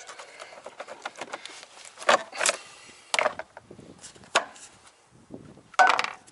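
Plastic clicks, knocks and rubbing as the air filter box lid of a Can-Am Outlander Max 570 ATV is unlatched and pulled off by hand. The sharpest clatter comes near the end.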